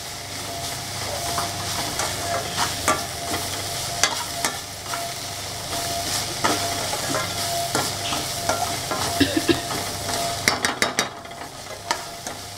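Perforated steel spatula stirring diced vegetables frying in a stainless steel kadai: frequent clinks and scrapes of metal on metal over a steady sizzle. A quick run of clinks comes near the end.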